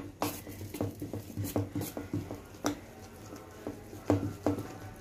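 Steel spoon beating thick rice and urad dal batter in a steel bowl: a run of irregular wet slaps and light clinks against the bowl, about two a second.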